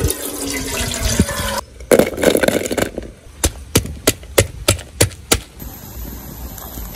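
Liquid pouring into a cooking pot, then a short rustle and a run of seven sharp knocks about three a second. A quieter steady noise follows.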